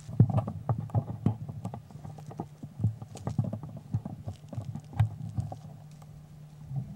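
Footsteps through dry scrub: irregular crunching knocks and twig crackles, most of them in the first six seconds, over a steady low hum.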